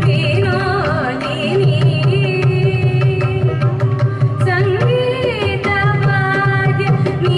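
Female voice singing a Carnatic melody with wavering, sliding ornaments, over a steady drone and light hand-drum strokes.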